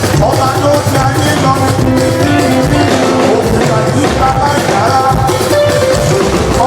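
Loud live church music: a choir singing over drums, running on without a break.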